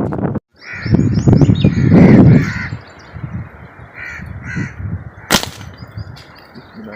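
Harsh, repeated crow-like bird calls over a loud low rumble in the first couple of seconds, with one sharp snap about five seconds in.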